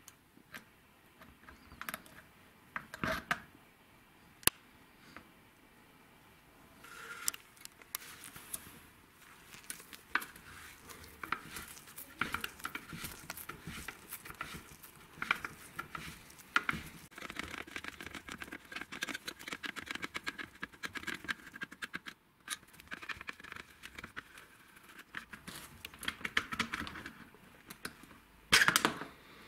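Metal hand tools clicking, tapping and scraping against the metal housings of a hammer drill as it is taken apart. A single sharp knock comes about four seconds in, and a louder clatter near the end.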